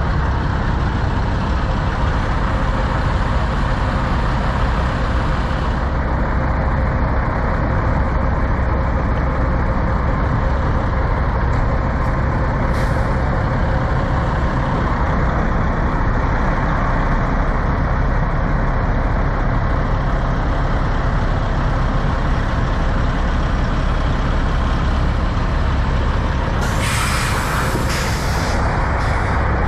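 Parked semi trucks' diesel engines idling in a steady rumble. There is a brief hiss of air a little before halfway, and near the end a loud air-brake hiss lasts about a second and a half.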